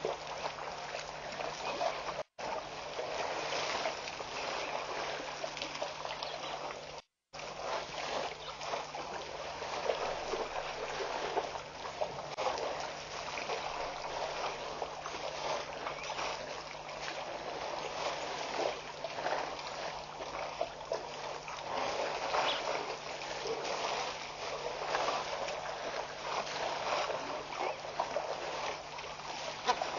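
African elephants drinking at a waterhole: a continuous crackle of water splashing and trickling as their trunks draw and spray water, over a steady hum. The audio cuts out completely twice, briefly, about two and seven seconds in.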